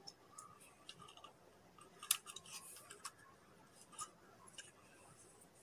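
Light clicks and small clatters of metal dissection instruments and plastic pieces being handled and set down in a plastic kit tray, with the sharpest clicks about two seconds in and again near four seconds.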